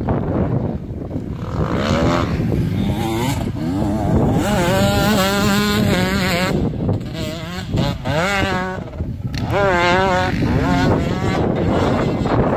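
Dirt bike engine revving as it is ridden over sand dunes, its pitch rising and falling again and again with the throttle, over wind noise on the microphone.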